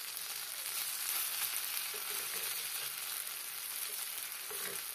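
Masala-coated raw nendran plantain slices and curry leaves sizzling steadily as they shallow-fry in hot coconut oil in an aluminium kadai. A metal spatula moves among them, stirring and turning the pieces.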